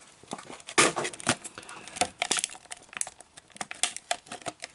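Plastic blister pack crinkling and crackling as it is peeled off a cardboard backing card whose glue is already letting go. Irregular crackles, the loudest about a second in and about two seconds in.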